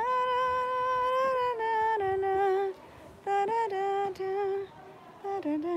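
A woman humming a tune: a long held note at the start, then a run of shorter notes stepping down and up, broken by two brief pauses.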